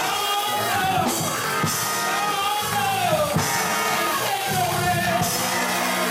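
Gospel choir singing with live band accompaniment, drums and cymbals keeping the beat under the voices.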